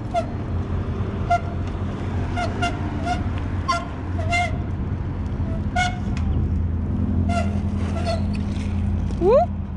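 A motor vehicle engine running with a steady low hum, with short high chirps repeating about every half second and a quick rising whistle near the end.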